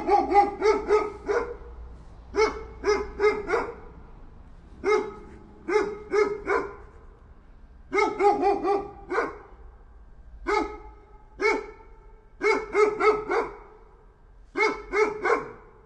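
A dog barking in quick runs of about three to six barks, each run lasting around a second, with short pauses between runs and the odd single bark.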